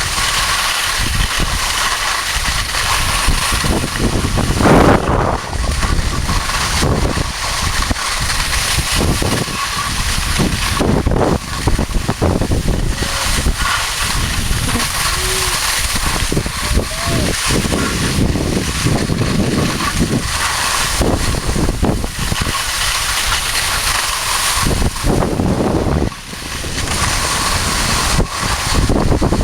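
Skis scraping and carving over snow at speed, with wind rushing over the action-cam microphone, loud and unbroken with many short scrapes and chatters.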